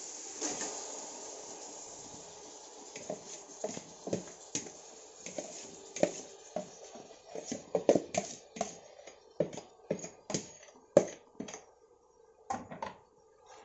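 Steel spoon scraping and tapping against a plastic bowl and the rim of an aluminium pot as thick marinated chicken is scraped into the pot: irregular sharp clicks and knocks, coming thicker and faster in the second half, over a faint hiss at the start that dies away.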